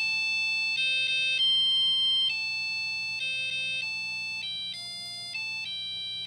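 Tandy 102's built-in piezo speaker playing a melody from a BASIC program using the SOUND statement. It plays one buzzy note at a time, each held a fraction of a second to nearly a second, stepping up and down in pitch.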